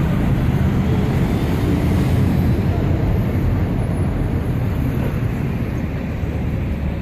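Steady low rumble of road traffic and bus engines, easing slightly near the end.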